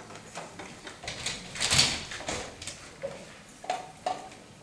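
A door being opened: a scraping rush that swells and is loudest about two seconds in, followed by a couple of short knocks.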